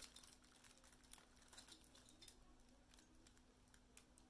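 Near silence: room tone with a faint steady hum and scattered faint light clicks as a rhinestone-studded boot strap is handled between the fingers.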